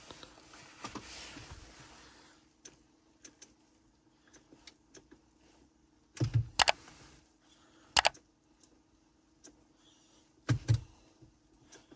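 Clicks of a Mercedes C200 W205's cabin controls as the ambient lighting colour is stepped through: scattered soft ticks, with sharper clicks in small clusters about halfway through, again two seconds later, and near the end.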